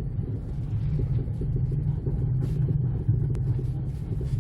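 Jeep Compass driving with a steady low hum from the wheels, the humming noise the owner is demonstrating. He suspects the wheels and finally judges both wheel bearings worn out from sitting in storage.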